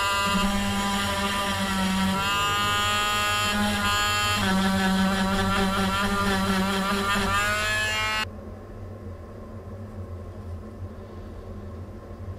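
Cordless drill motor running, its pitch rising and falling several times as the speed changes, then stopping suddenly about eight seconds in.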